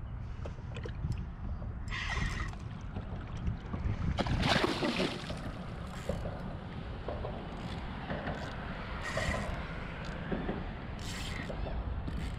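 Wind rumbling on the microphone and water sloshing around a kayak, with a few brief hissing sounds, the loudest about four to five seconds in.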